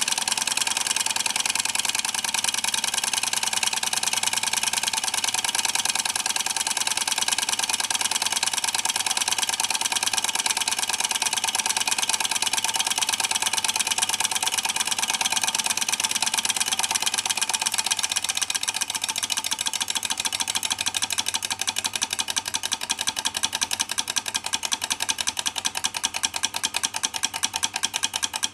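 Solar Engines Stirling beam engine model running: a fast, even mechanical clatter from its rocking beam, linkages and flywheels. In the last third the beats grow slower and more distinct, as the engine runs on with its torch flame taken away.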